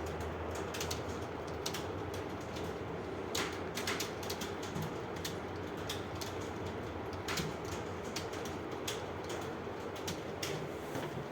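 Computer keyboards clacking irregularly as several students type at once, with a steady low hum underneath.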